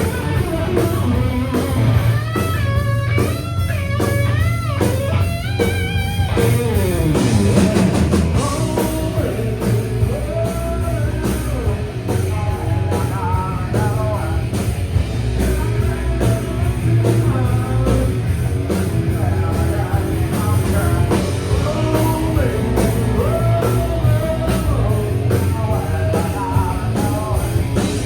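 Live grunge rock band playing loudly: electric guitar lead with bent, wavering notes a couple of seconds in that ends in a long falling slide, then singing over guitar, bass and drums.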